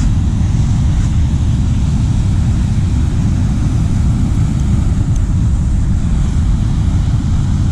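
Wind buffeting the microphone as a steady low rumble, over the wash of ocean surf.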